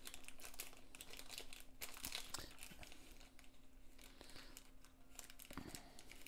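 Faint rustling and crinkling of small plastic gemstone bags being handled, with scattered light clicks, over a faint steady hum.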